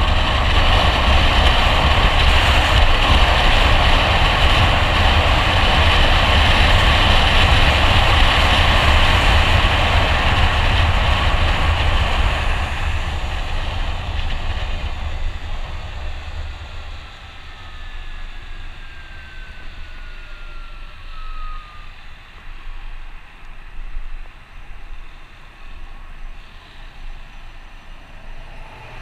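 Wind rush and road noise from riding a 2015 Zero SR electric motorcycle at freeway speed, loud for about the first twelve seconds, then dropping off as the bike slows behind traffic. A faint whine falls slowly in pitch about two-thirds of the way through.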